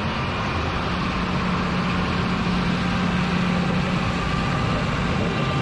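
New Holland TM165 tractor's six-cylinder diesel engine running at a steady speed, with an even, unchanging low hum.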